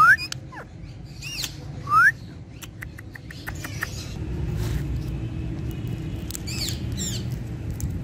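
Indian ringneck parakeet calling: two loud, short rising whistled chirps near the start and about two seconds in, and a quick run of squawks near the end, over a steady low rumble.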